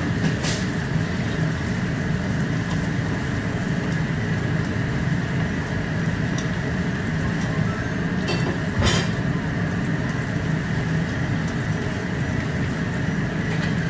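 Stir-frying on a gas hob: green vegetables sizzling in a hot pan under a steady rushing hum, with a few clicks of the spatula against the pan, two of them close together around the middle.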